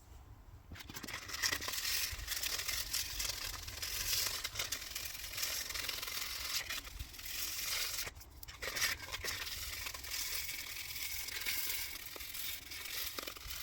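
Hand sanding with fine-grit sandpaper (320 to 600 grit) on the acrylic handle of a custom lock pick: a continuous rasping hiss, broken by short pauses about eight seconds in and again near the end.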